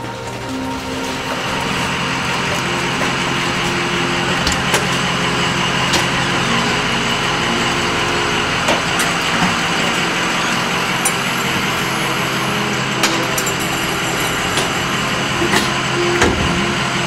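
A vehicle engine running steadily, with scattered short clicks and rattles over it.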